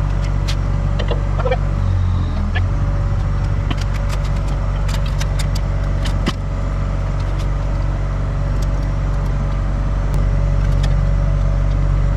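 Diesel engine of a CAT skid-steer loader idling steadily. Scattered light clicks and taps, most of them in the middle, come from work on a steel table leg.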